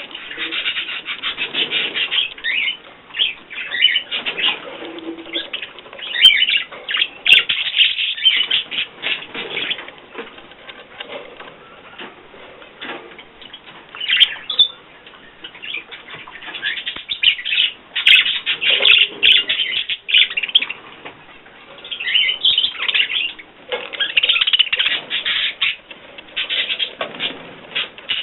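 Pet bird chattering and chirping in rapid runs of short high notes, coming in spells with brief pauses.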